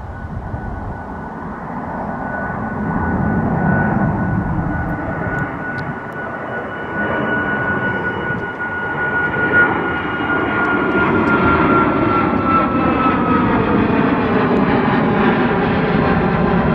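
Boeing 737 MAX 8-200's CFM LEAP-1B turbofans at departure power, a loud steady jet rush that swells as the aircraft approaches. A high whine over it slides slowly down in pitch as the jet passes.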